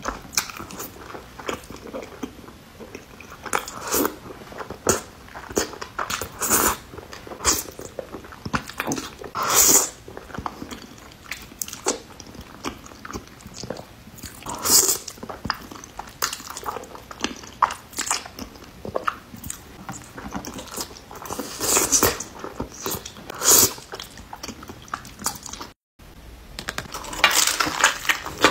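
Close-miked eating sounds: wet chewing, lip smacks and slurps of saucy buldak ramen noodles and dumplings, in irregular bursts. After a brief break near the end come louder bites into a hard taco shell.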